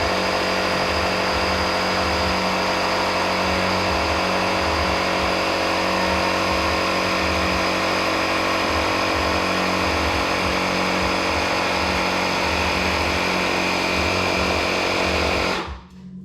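Small electric air compressor running steadily as it pumps up a scooter's rear tire, then switching off abruptly about a second before the end.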